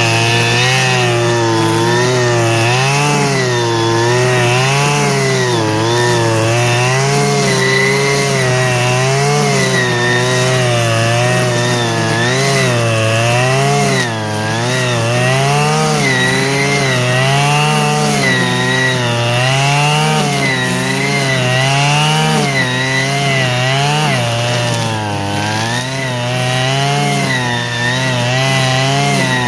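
Stihl FS 120 brushcutter's single-cylinder two-stroke engine running at part throttle after a repair, its speed rising and falling every second or two without stopping.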